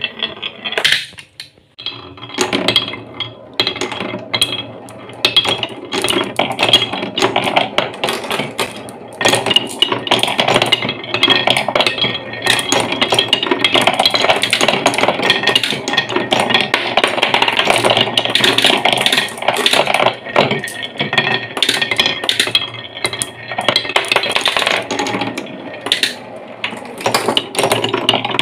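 Glass marbles rolling and clattering on a wooden marble run and spinning round a grooved wooden funnel: a continuous rumble with dense clicking as they knock against each other and the wood.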